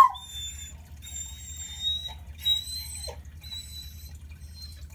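Six-month-old Bluetick Coonhound puppy: the end of a short howl, then a string of about five thin, high-pitched whines, each under a second. She is protesting at being called down the stairs.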